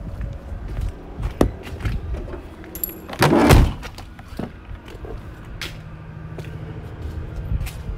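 Heavy truck cab door on a 2016 Peterbilt 579 swung shut with one loud slam a little over three seconds in, with a few sharper clicks and knocks around it.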